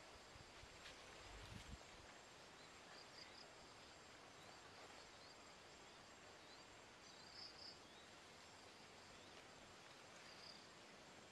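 Near silence: faint outdoor ambience with a thin, steady high insect drone and a few faint high chirps. There are soft rustles in the first two seconds.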